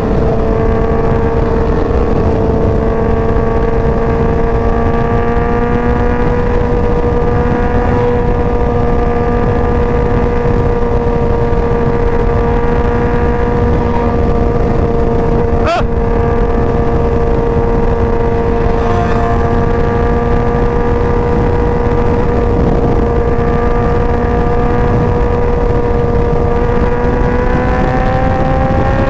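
Yamaha R1 crossplane inline-four with an aftermarket Competition Werkes exhaust, cruising at a steady engine speed, heard from the rider's helmet over heavy wind rumble. The engine note climbs near the end as the bike speeds up. There is one sharp click about halfway through.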